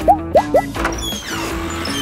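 Cartoon background music with a steady repeating note pattern, overlaid with sound effects: two quick up-and-down pitch swoops near the start, then falling sliding tones about halfway through.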